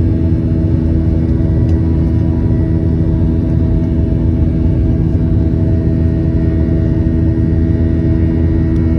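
Jet airliner cabin noise during the climb after takeoff: a steady engine drone and airflow roar with several steady humming tones underneath.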